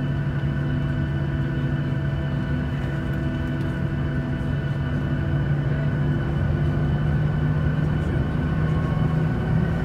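Boeing 737-700's CFM56-7B jet engines at low power, heard inside the passenger cabin: a steady low hum with a constant whine above it. The sound grows a little louder and higher near the end.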